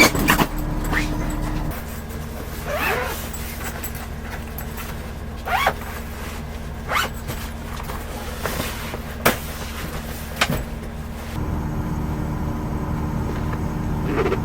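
Steady low hum of a vehicle engine running. It is broken by a few short, rising squeaks and one sharp click about nine seconds in.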